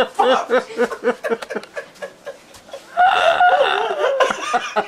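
Laughter in short rhythmic pulses, then a long, wavering, high-pitched call about three seconds in, which could be a person or a bird.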